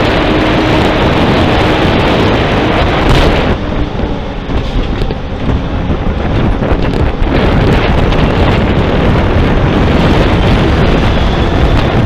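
A heavy truck passing right alongside a cyclist, its engine and tyres loud and close, with strong wind buffeting on the bike camera's microphone. The noise eases for a moment midway, then builds again as the truck's rear wheels go by.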